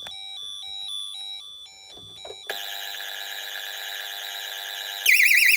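Pyronix Paragon Super intruder alarm beeping in a repeating pattern of short tones, about two a second. About two and a half seconds in, a steady sound of many tones starts. Near the end a loud, fast-warbling siren cuts in as the system goes into full alarm.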